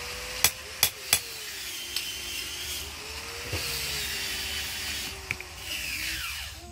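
Steel clinking as a forged wangkil blade is handled with blacksmith's tongs: three sharp clinks in quick succession about half a second in, then a few fainter taps. Underneath runs a steady hiss and a low hum that slowly rises and falls in pitch.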